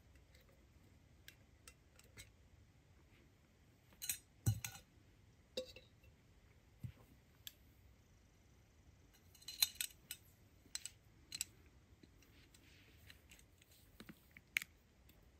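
Camp cooking gear being handled, with scattered light clicks and clinks of small metal and hard parts. There are a few louder knocks about four to five seconds in, a quick run of clicks around ten seconds, and one more near the end.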